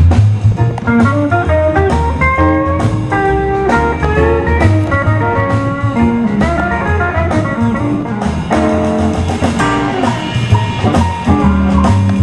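Band music in a blues style led by electric guitar, with a pulsing bass line and drums keeping a steady beat.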